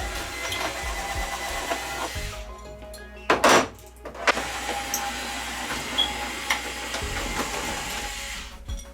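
Cordless drill-driver running, backing out the Phillips screws that hold a flat-screen TV's stand feet on, with a short loud clunk about three and a half seconds in. Music plays underneath.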